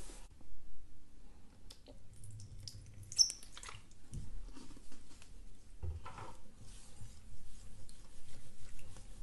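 Clear glue being stirred in a bowl with a plastic stirrer: irregular wet stirring and scraping noises, with scattered clicks and one sharper click about three seconds in.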